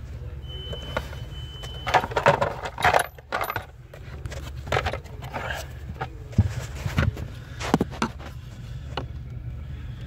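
Clicking and clattering of hard plastic parts and tools being handled under a car's dashboard during heater blower motor removal. It comes in several short bursts over a steady low hum.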